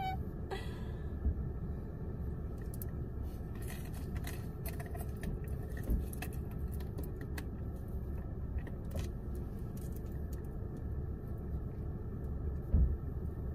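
Steady low rumble inside a parked car's cabin, with scattered light clicks and rattles and a dull thump near the end.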